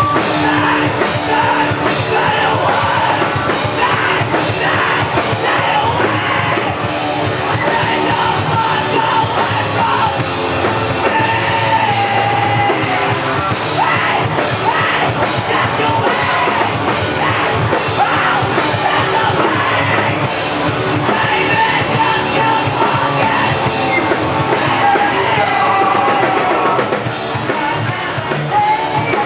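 Live rock band playing loud, with drums, electric guitar and a singer's voice.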